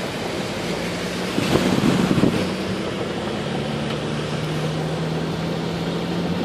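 Heavy rain and road water making a steady wash, with a vehicle engine humming steadily underneath; a brief louder surge of water noise comes about two seconds in.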